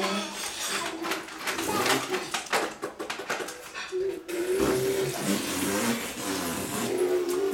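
A man and a small child making funny noises with their voices: breathy, buzzy sounds in the first half, then longer held, wavering pitched sounds.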